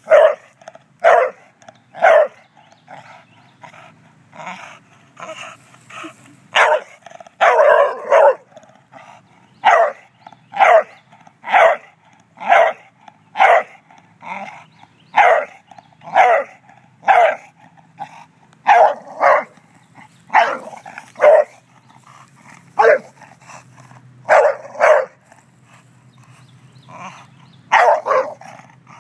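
English bulldog barking over and over, about one bark a second, with a few short pauses between runs.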